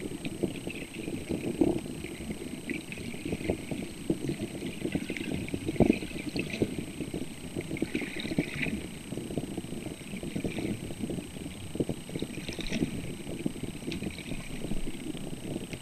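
Underwater ambience picked up by a submerged camera: a steady low rumble full of dense small clicks and crackles, with a faint steady high-pitched tone behind it.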